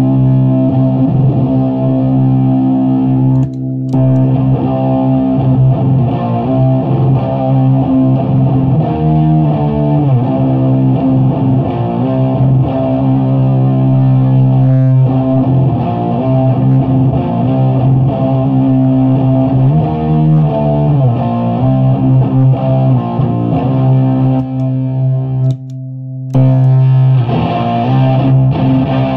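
Heavily fuzz-distorted electric guitar, a '78 Gibson Les Paul Custom played through a 50-watt Bridge City Sound Morrison tube head into a 6x12 cabinet with Celestion V70 Gold speakers. Long sustained low chords ring out and change every few seconds, with two short breaks, about four seconds in and near twenty-six seconds.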